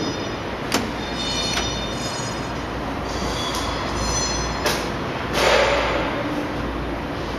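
BJA4P double-decker sealing and cutting bag making machine running: a steady mechanical din, broken by a few sharp clacks and short high-pitched squeals.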